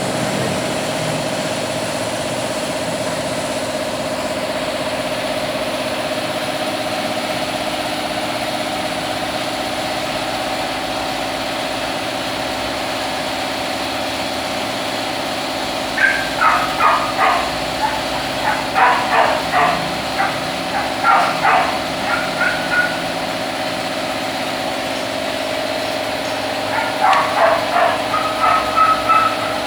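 A cat coughing and wheezing in two bouts of quick, rhythmic wheezy coughs, one about halfway through lasting several seconds and another near the end, over a steady mechanical hum.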